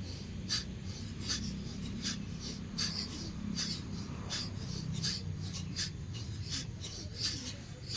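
Bhastrika (bellows) breathing: sharp, forceful breaths through the nose repeated at an even pace, about one every three-quarters of a second.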